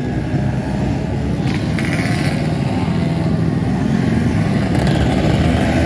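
Small motorcycle engines running and revving as bikes ride around, one passing close by about four seconds in; the sound grows a little louder toward the end.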